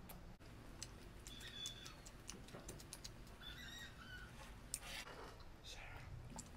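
Quiet clicks and crackles of eating peeled shrimp: shells cracking, chewing and fingers picking shrimp from the tray, with one sharper click about five seconds in.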